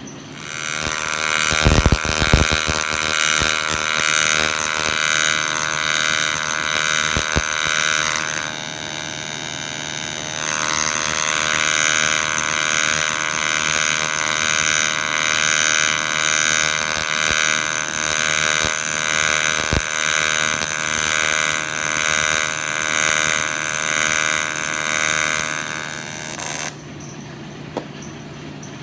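AC TIG welding arc on aluminum: a loud, steady electrical buzz that eases off briefly about a third of the way in, then comes back and cuts off suddenly near the end. The arc is joining a thin aluminum piece to a much thicker aluminum flange at about 112 amps.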